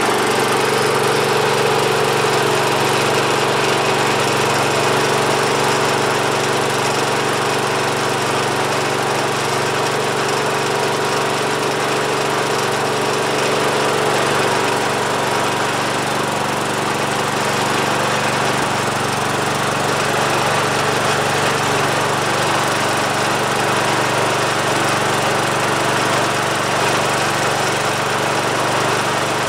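Kohler Magnum 16 horsepower engine of a Wheel Horse 416-8 garden tractor running steadily, just after a cold start that took a long time of cranking.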